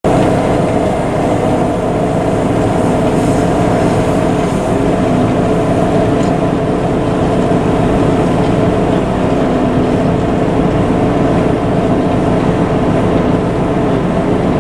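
JCB Fastrac 7270 tractor's Cummins diesel engine running under load as it pulls a six-furrow plough through the ground. The sound is steady, dipping slightly in pitch a few times.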